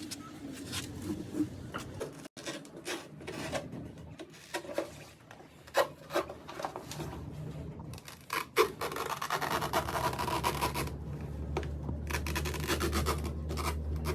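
Irregular rasping and scraping strokes, the sharpest about six and eight and a half seconds in. From about two-thirds of the way through, a steady low hum runs beneath them.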